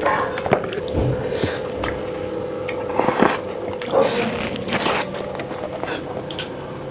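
Close-miked eating: chewing and wet mouth sounds with scattered short clicks of a spoon on a steel plate and a glass bowl, over a steady faint hum.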